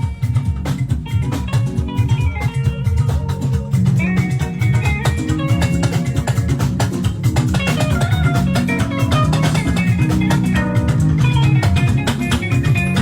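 Live juju band playing an instrumental passage: plucked guitar lines over a bass guitar and a steady drum beat.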